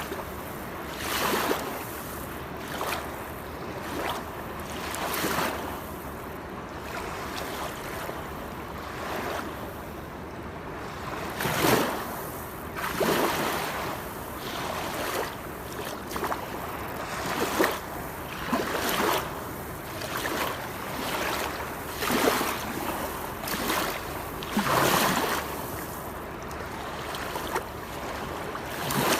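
Waterfall: a steady rush of falling water with irregular louder splashes every second or two.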